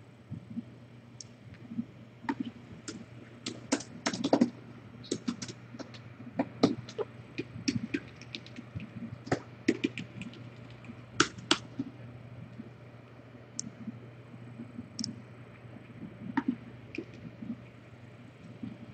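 Computer keyboard being typed on: irregular key clicks, quick and busy for the first ten seconds or so, then only a few scattered clicks near the end, over a steady low hum.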